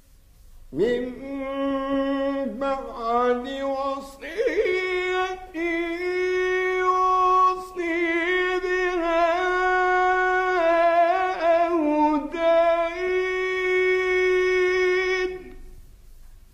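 A male Quran reciter's voice chanting one long melodic phrase of Quranic recitation, with drawn-out held notes that waver and slide between pitches. It starts about a second in, steps up to a higher held note about four seconds in, and fades out shortly before the end.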